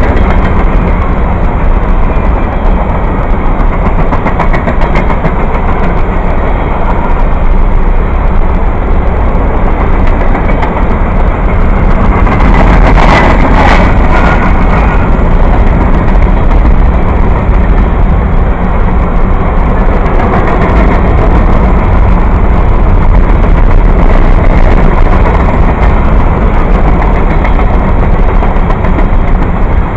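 Passenger train rolling past, a steady loud rumble of its cars and wheels on the rails, with a brief louder, sharper rush about halfway through.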